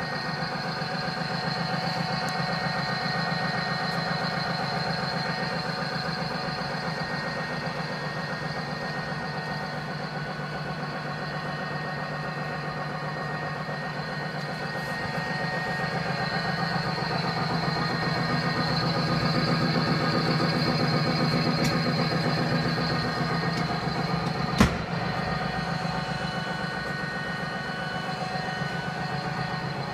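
Lorenz SN4 gear shaper running: a steady machine hum with several steady tones and a fast, even pulsing, and one sharp click about twenty-five seconds in.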